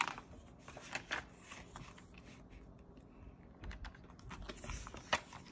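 Pages of a paperback book being turned and handled: faint paper rustles with scattered soft clicks and taps.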